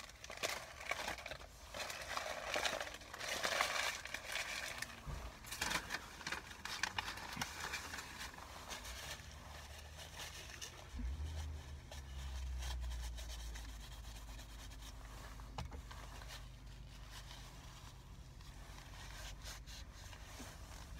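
Paper sandwich wrapper crinkling and rustling as it is handled, busiest over the first eight or nine seconds, then fainter. A low steady rumble comes in about halfway through.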